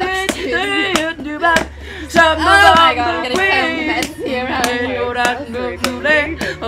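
A song: wordless vocalising over a beat of sharp percussive hits.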